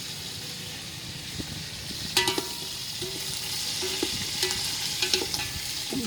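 Food sizzling in hot oil in a pot over a wood fire, a steady hiss with a few sharp clicks of stirring.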